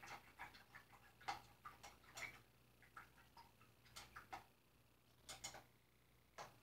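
Faint, irregular light clicks and taps of paintbrushes and painting supplies being handled, some in quick clusters and others single, with short pauses between groups.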